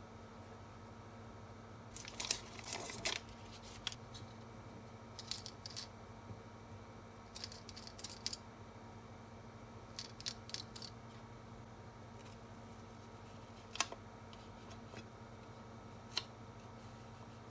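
Aluminum foil being handled and cut: four short bursts of crinkling and snipping, then two single sharp clicks.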